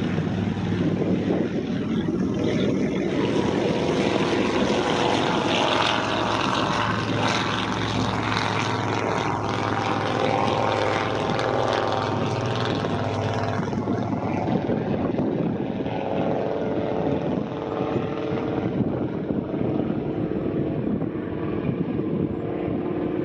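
Avro Anson's twin radial engines running at take-off power as it rolls, lifts off and climbs away, the sound turning duller in the last third as it draws off.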